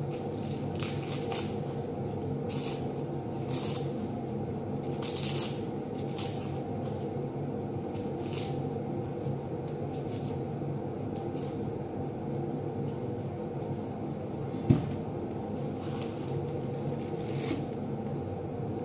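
Dry papery skins of red onions crackling and rustling as they are peeled off by gloved hands, in short rustles every second or so, over a steady low hum. A single sharp knock about 15 seconds in.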